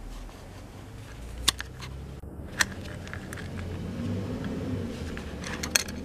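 ThinkPad T420 hard drive caddy being worked out of its bay: sharp clicks about a second and a half in and again a second later, then a quick cluster of clicks near the end as it slides free, over a low steady hum.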